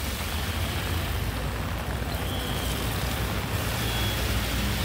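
Road traffic noise from a jam of trucks, buses and cars on a flooded road: engines running in a steady low rumble under a continuous hiss.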